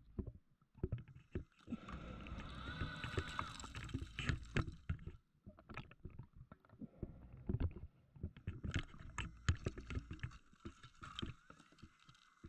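A scuba diver breathing underwater through a regulator, with two long rushes of exhaled bubbles. Scattered clicks and knocks come from shells and stones being shifted on the seabed as the sand is fanned.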